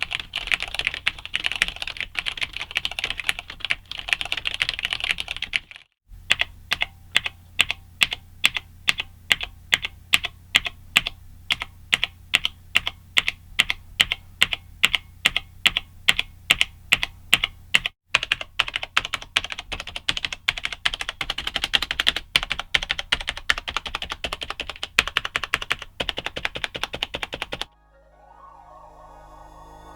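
Typing on a Cherry G80-3000 keyboard with Cherry MX Black linear switches: quick irregular keystroke clicks. After about six seconds the typing gives way to a steady stream of single presses, about four a second, before fast typing resumes. Near the end, soft ambient music takes over.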